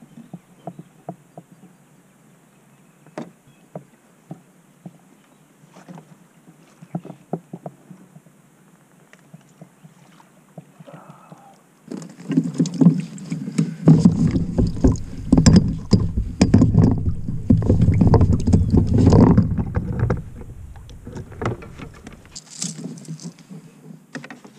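Scattered knocks and clicks of a landing net and gear against a plastic kayak. About halfway through comes a louder stretch of thumping and rustling, lasting around eight seconds, as a netted brown trout is handled aboard; then it settles back to light clicks.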